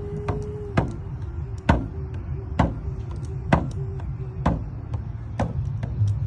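A drum struck in a slow, steady beat, about one stroke a second, like a heartbeat pulse, with a faint held tone underneath.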